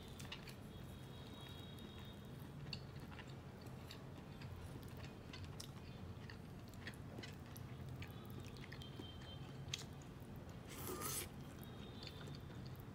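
Faint eating sounds: chopsticks clicking now and then against porcelain plates and a sauce bowl as a steamed rice roll is picked up and dipped, then a louder bite about eleven seconds in.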